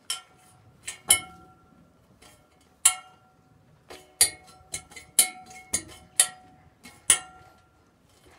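About ten sharp metallic clinks at uneven intervals, each leaving a short ringing tone.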